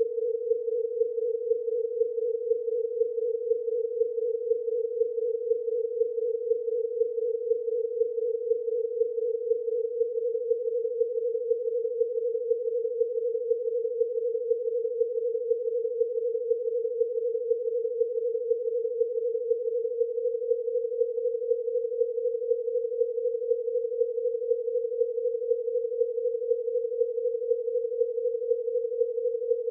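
A chord of ten pure sine tones tuned to prime-number frequencies around 450 to 500 Hz, sounding together as one steady buzzing tone that pulses in a fast, even beat where the close frequencies interfere. The pitch creeps slightly higher as the set of primes steps upward.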